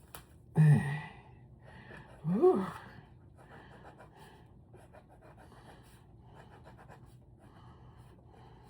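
Pen or pencil drawing on paper, a faint scratching of quick small strokes, broken twice near the start by short wordless vocal sounds that slide in pitch.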